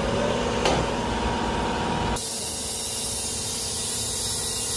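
A workshop machine's rumble, with one sharp click, cuts off abruptly about two seconds in. It gives way to a steady hiss of compressed air being fed into a motorcycle tyre through an airline, with air escaping at the side where the tyre bead has not yet sealed on the rim.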